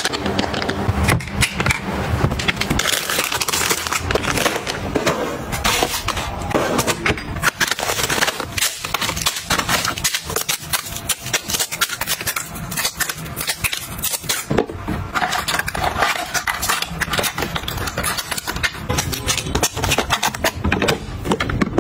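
Plastic packaging crinkling and rustling by hand, with many light clicks and taps as flat plastic packets are handled and slotted into a clear plastic organizer box.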